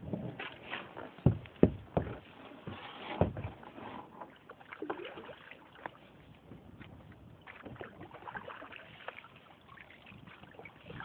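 Canoe being paddled on floodwater: several sharp knocks against the hull in the first few seconds, then quieter paddling and water noise with occasional clicks.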